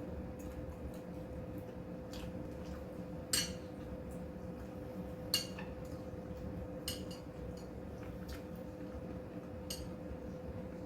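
Cutlery clinking and tapping against dishes during a meal: a scattering of light clicks, two sharper clinks about a third and halfway through, over a steady hum.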